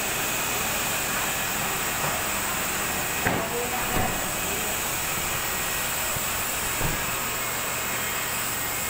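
Steady hissing noise at an even level, with a few soft knocks and bumps a little after three seconds, at four seconds and near seven seconds as the recording phone is handled against clothing.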